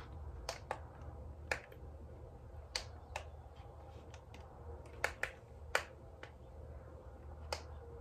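Handheld T4 IPL beauty device being tried out: about ten short, sharp clicks at irregular intervals, some in quick pairs.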